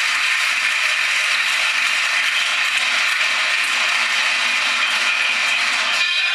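Crowd noise in a full basketball hall during play: a dense, steady din of spectators with a clattering, clicking texture, briefly dipping near the end.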